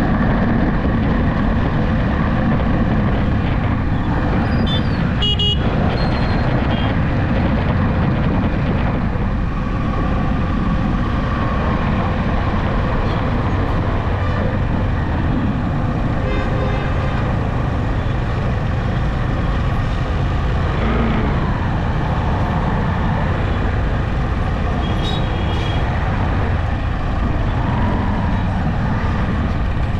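Steady road noise from a moving vehicle: engine hum, tyre and wind noise. Short horn toots from traffic sound about five seconds in and again near the end.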